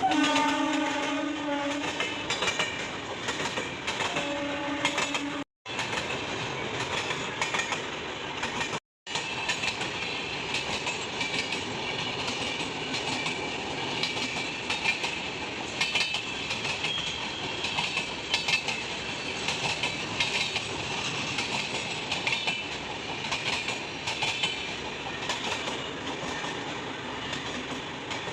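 WAG-9HC electric locomotive's horn sounds twice: a blast of about two seconds at the start and a shorter one about four seconds in. Then a long rake of BCN covered wagons rolls past with a steady rumble and the clickety-clack of wheels over rail joints.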